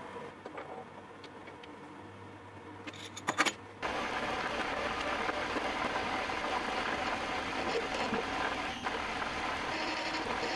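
Metalworking machine in a workshop: a steady motor hum, then a few sharp clicks and knocks about three seconds in. Near four seconds it changes abruptly to a louder, steady machine noise that carries on.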